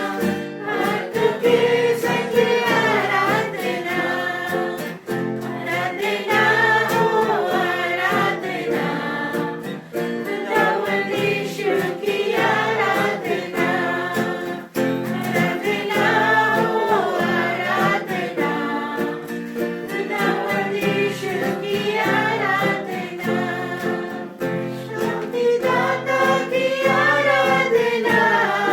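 Hindi Christian worship song sung by a group of voices over a steady instrumental backing.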